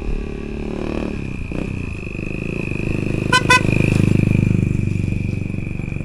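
A small vehicle's horn beeps twice in quick succession about three seconds in, while an engine running close by swells louder and then eases off.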